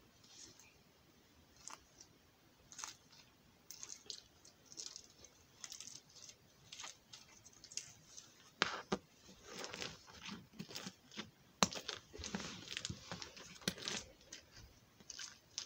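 Slime being squeezed and kneaded by hand: irregular little clicks, pops and crackles, sparse at first and busier and louder from about halfway.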